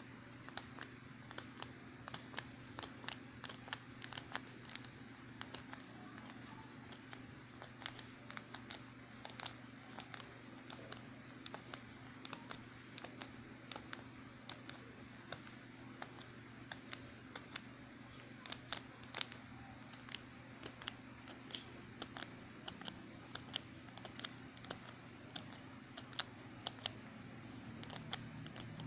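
A fine needle pricking holes along the lines of a paper pattern. Each stab is a small, sharp tick, coming irregularly a few times a second, over a faint steady low hum.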